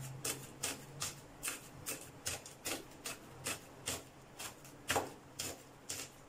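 Kitchen knife finely chopping green chillies on a plastic cutting board: a steady run of light, sharp taps of the blade on the board, about two and a half a second.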